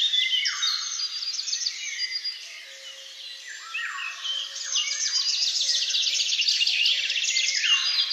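Dense chorus of songbirds singing, many overlapping songs with fast trills and downward-sweeping notes, thinning briefly about halfway through.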